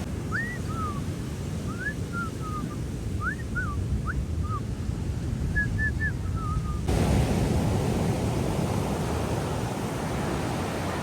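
Ocean surf and wind on the microphone, with a string of short whistled notes over it for the first six seconds or so, each a quick rising or falling glide. About seven seconds in, the sound changes abruptly to louder, hissier surf and wind.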